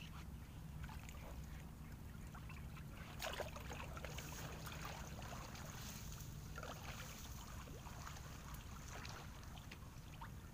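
Water splashing and sloshing in short strokes, loudest about three seconds in and again near seven seconds, over a steady low rumble.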